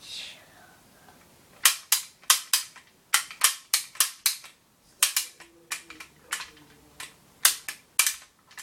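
Plastic toy shotgun's mechanism being worked over and over: about twenty sharp clicks in quick, irregular succession, starting a couple of seconds in. The action is stiff and the gun partly broken.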